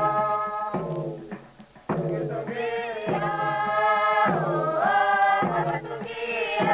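A group of Papua New Guinean villagers chanting together in short, repeated phrases, each held on a steady note, with a brief pause about a second and a half in.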